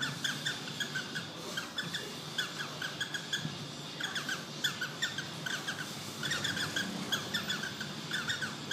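Cockatiel making a fast run of short, squeaky falling chirps, several a second, repeated in runs with brief pauses.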